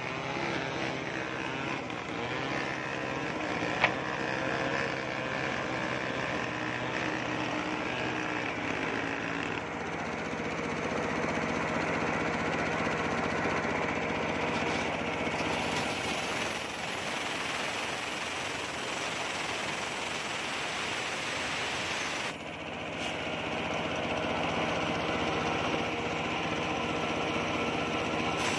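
Homemade machine-driven circular saw ripping a coconut-wood plank into boards, the blade and its drive running steadily under load. There is a single sharp knock about four seconds in and a brief dip in the sound about 22 seconds in.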